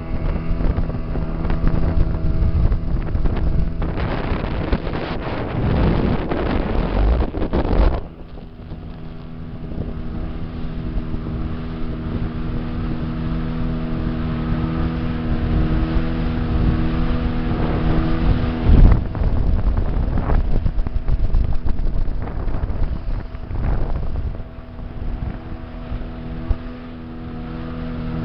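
Speedboat engine running steadily under way, a constant drone with wind rushing over the microphone. It is louder and rougher for the first eight seconds, and a sharp thump comes about 19 seconds in.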